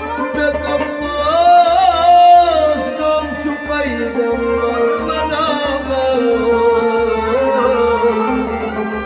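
Instrumental passage of a Kashmiri Sufi devotional song: a sliding melody with wavering pitch over a steady hand-drum beat of about two strokes a second.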